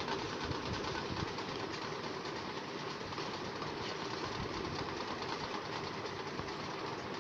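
Steady background noise, an even hiss and low rumble with no distinct events: room tone between narration.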